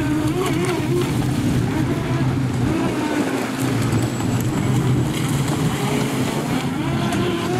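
Brushless electric motor of a ProBoat Recoil 26 RC boat whining, its pitch wavering up and down with the throttle as the boat runs through the waves, over a steady low hum and wind on the microphone.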